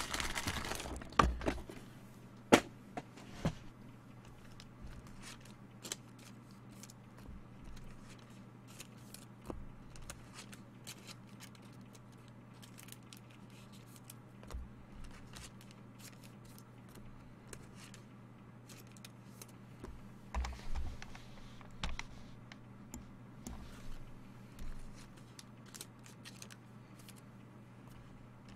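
Trading cards being handled and sorted: scattered light clicks and taps, the sharpest three in the first few seconds, with a patch of rustling about two-thirds of the way through, over a steady low electrical hum.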